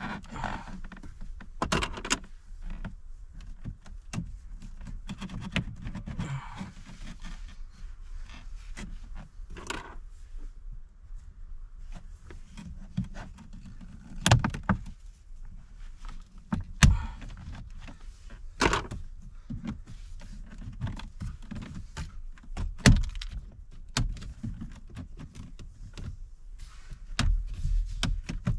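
Plastic pry tools working at the plastic instrument bezel of a 2022 Dodge Challenger's dash: irregular clicks, taps and knocks of plastic on plastic as the trim is levered at, with a few sharper knocks around the middle.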